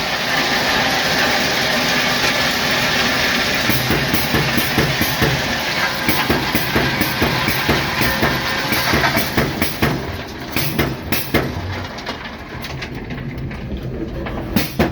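Ballast train rolling slowly along the track: a steady rumble with many rattles and clanks, growing quieter about ten seconds in.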